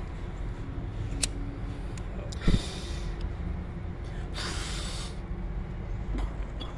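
A person taking two sharp, noisy breaths about two seconds apart, with a thump at the start of the first, over a steady low rumble.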